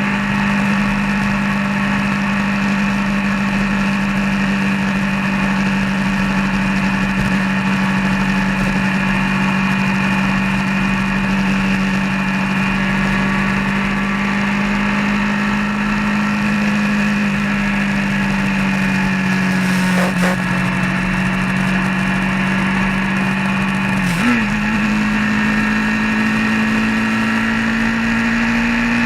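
Road vehicle's engine running steadily under way, its pitch nearly constant. It dips briefly twice, about two-thirds of the way through and again a few seconds later, then rises slowly near the end.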